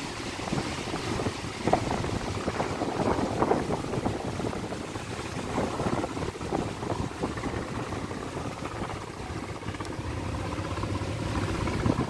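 Strong wind buffeting the microphone over choppy river water, rising and falling in gusts. A faint steady engine hum from a river boat joins near the end.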